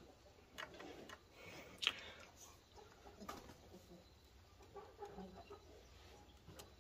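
Quiet handling of a steel ruler and marker pen on a wooden column end: a few light clicks and taps, the sharpest about two seconds in.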